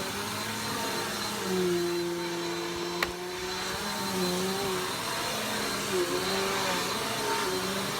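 Vacuum cleaner running steadily, its motor pitch dipping and recovering every second or two, with a high whine over the airflow hiss and a sharp click about three seconds in.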